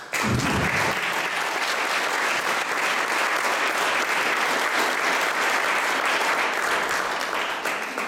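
Audience applauding in a hall, starting all at once with a low thump and beginning to die away near the end.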